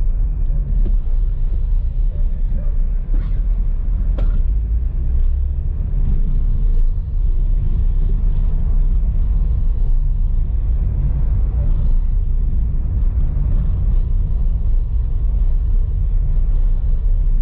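Car driving slowly along a town street, heard from inside the cabin: a steady low rumble of engine and tyres on the road, with a couple of faint clicks about three and four seconds in.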